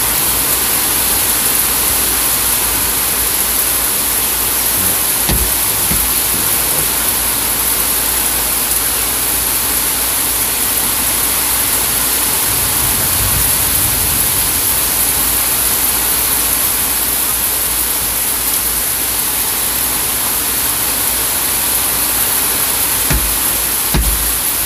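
Heavy thunderstorm rain pouring steadily, a dense, even hiss, with a few brief low thumps.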